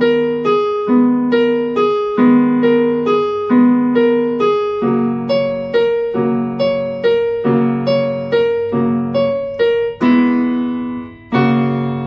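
Electronic keyboard playing a repeated two-note right-hand figure, A#–G# and then C#–A#, each note struck and dying away, about two to three notes a second. Underneath, left-hand chords change from G# minor to F# major about five seconds in.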